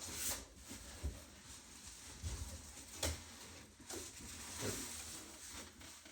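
Scattered knocks and rustling as things are handled, with a sharper knock about three seconds in.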